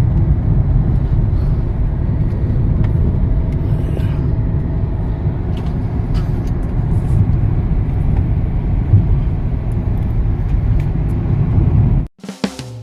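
Steady low rumble of a moving vehicle, road and engine noise heard while travelling, cutting off abruptly near the end.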